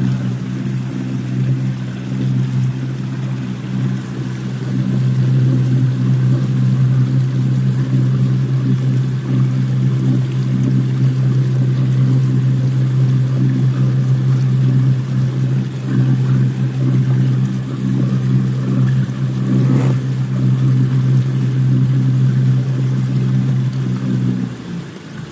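A boat's outboard motor running at a steady cruising speed, a constant low drone over water rushing past the hull. The drone drops away near the end as the motor is throttled back.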